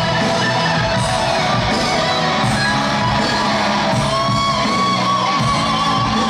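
Live band music from the arena's sound system, led by guitar, with crowd shouts mixed in. No singing; a held guitar note rings out over the last couple of seconds.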